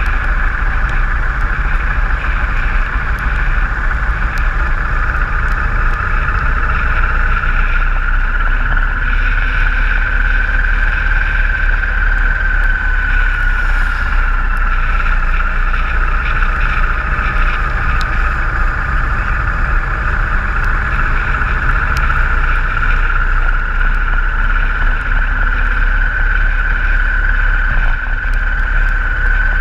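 Motorcycle riding at steady speed on a wet road, heard from a bike-mounted camera: continuous wind rush and rumble over the camera with engine and tyre noise, and a steady whine that drifts slowly in pitch.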